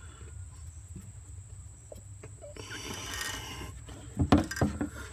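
Tools and parts being handled: a brief rustle about three seconds in, then a few sharp knocks near the end, over a low steady rumble.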